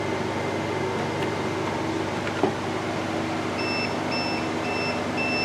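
APC battery backup (UPS) beeping about twice a second, four beeps starting a little past halfway: the alarm that it has lost wall power and switched to battery. A single click comes a second or so before the beeps, over a steady hum.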